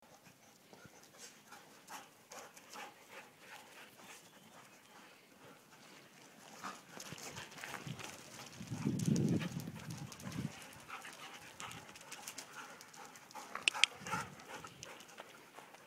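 Dogs (huskies and a black Labrador) playing on loose topsoil: scattered scuffs and rustles, with a louder muffled stretch about nine seconds in and a few sharp clicks near the end as a husky comes close.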